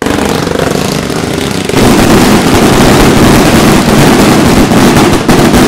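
A fireworks barrage: a dense, continuous run of bangs and crackle that gets louder about two seconds in.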